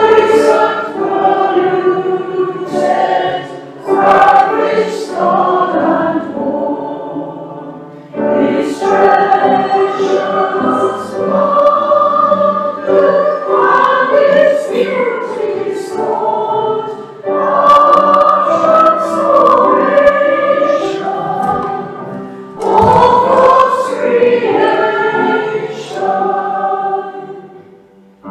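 A church congregation singing a hymn together, line by line, with short breaks between the phrases. The singing fades at the end of a verse.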